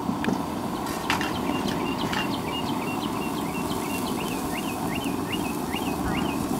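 Diced onions sautéing in a stainless steel pan on a portable gas burner: a steady low rush, with a couple of clicks of the spatula against the pan. A bird sings a run of short rising chirps, about two a second, through the middle.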